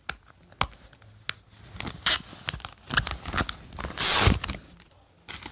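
Plastic shrink-wrap being worked and torn off a movie case: a few small clicks, then crinkling and ripping, with the loudest rip about four seconds in.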